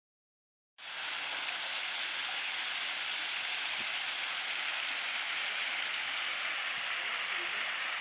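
Steady rush of water splashing down a small landscaped rock waterfall into a pond, cutting in abruptly just under a second in.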